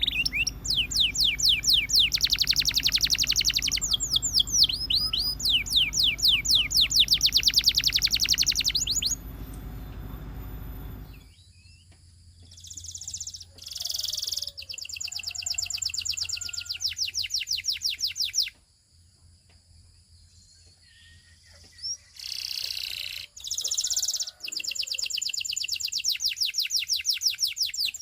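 Domestic canary singing: fast, rolling trills of rapid repeated pitch sweeps, in several phrases. A long phrase opens, followed by shorter ones with pauses between, the longest pause about two-thirds of the way through.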